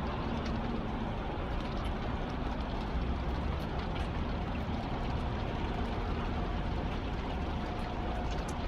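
Steady storm wind rushing over the phone's microphone with a low rumble, level throughout.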